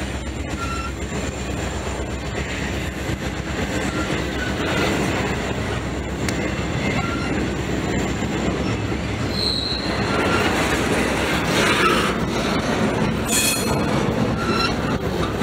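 Intermodal freight train cars rolling past: a steady rumble of steel wheels on the rails, with brief high wheel squeals now and then, the loudest stretch about twelve seconds in.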